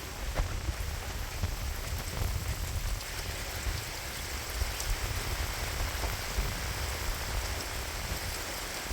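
Heavy thunderstorm rain falling steadily, with wind buffeting the microphone in a low, uneven rumble.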